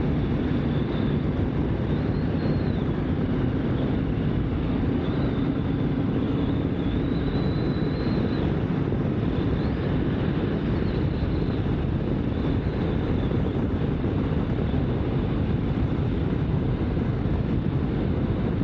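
Motorcycle riding at a steady cruising speed: a constant mix of engine and wind noise, with no change in throttle.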